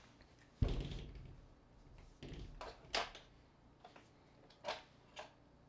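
Phones being handled on a tabletop: one heavy thud about half a second in, a brief rustle, then a few light clicks and knocks.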